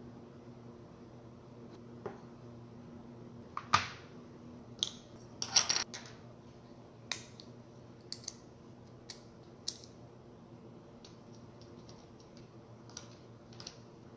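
Scattered sharp clicks and light knocks of small tools and parts handled on a wooden tabletop, loudest in a cluster about four to six seconds in, then smaller clicks as a circuit board is fitted to a panel. A low steady hum runs underneath.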